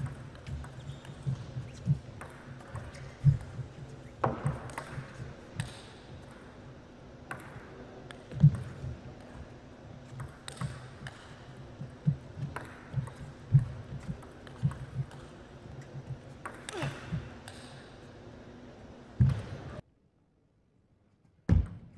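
Table tennis ball clicking off rackets and bouncing on the table in a long rally, a hit every half second to a second. The sound drops out briefly near the end.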